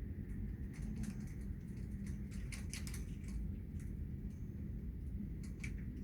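Rain falling: irregular drops ticking sharply on a surface, over a steady low rumble.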